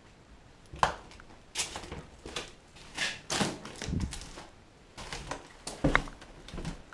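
Irregular crunches and knocks that start about a second in, footsteps over a debris-strewn floor.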